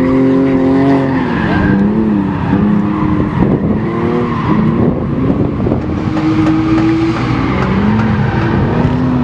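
BMW E46 drift car sliding through a course: the engine is revved up and down over and over as the tyres squeal.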